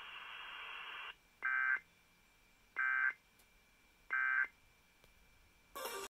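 Emergency Alert System end-of-message signal: three short, identical bursts of screeching two-tone SAME data, each under half a second and about 1.3 s apart, marking the end of the alert. A steady hiss fills the first second before them, and another burst of noise starts near the end.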